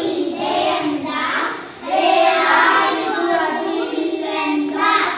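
A small group of young children singing a Kannada poem together, with a brief pause just before two seconds in.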